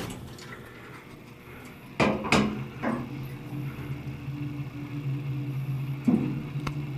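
Otis hydraulic elevator car setting off and travelling down: two sharp clunks about two seconds in as it starts, then a steady low hum, with another clunk near six seconds.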